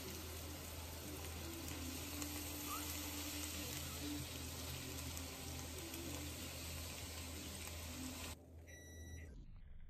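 Egg omelette mixture sizzling and steaming inside a closed electric waffle maker: a steady hiss with a low hum underneath. It cuts off suddenly about eight seconds in.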